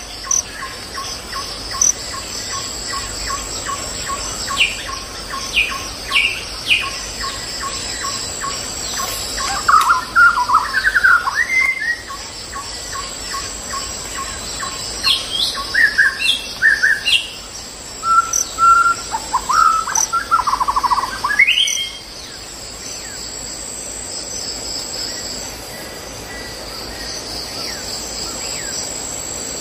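Recorded nature ambience: birds chirping and calling over a steady high drone of insects, with one bird repeating a short note at a regular pace through the first half. The chirping stops a little past the two-thirds mark, leaving only the insect drone.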